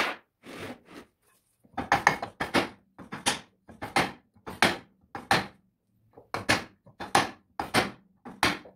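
Mallet blows on the end cover of a Multilith 1250's rotary vane compressor, tapping the cover and its bearing home onto the housing. Sharp knocks about two a second, with a couple of short pauses.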